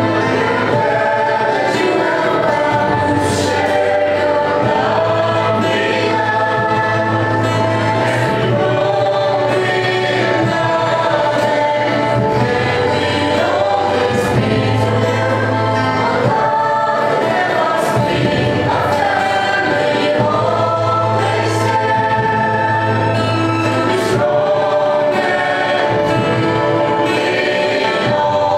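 A mixed group of men and women singing a song together live through microphones, with a low sustained note coming and going beneath the voices.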